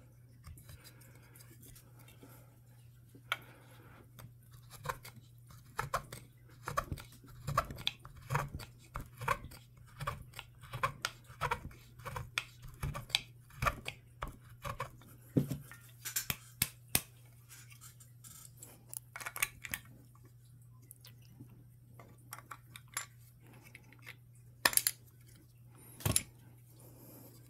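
Small curved half-round chisel scraping and paring wood out of a pistol stock's trigger-guard inlet in short irregular strokes, the slow hand-inletting of the recess so the guard will seat. Near the end come two sharp clicks as the brass trigger guard is fitted into the inlet, over a low steady hum.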